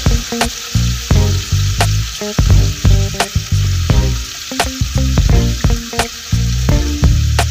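Marinated beef slices sizzling and frying in hot oil in a nonstick pan, with tongs moving the pieces. Background music with a steady beat plays over it.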